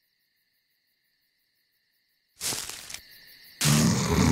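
Faint crickets chirping in a night-time orchard. About two and a half seconds in, a short burst of rushing noise breaks in. From about three and a half seconds a loud, dense rushing sound takes over.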